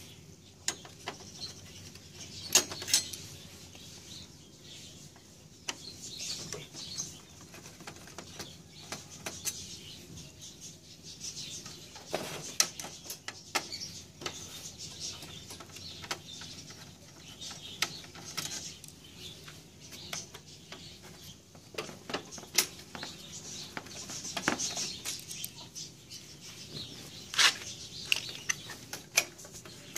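Phillips screwdriver backing screws out of the sheet-metal formatter-board cage of an HP LaserJet 1300 printer: scattered small metallic clicks, taps and scrapes, with quieter stretches between.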